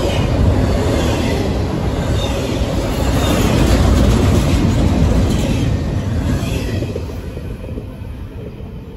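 Freight train of double-stack container well cars rolling past close by, a heavy rumble of wheels on rail with high-pitched wheel noise. The sound fades away as the last car passes, about seven seconds in.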